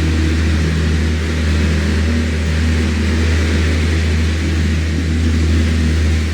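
Electric fan running steadily: a low, even motor hum under a constant rush of moving air.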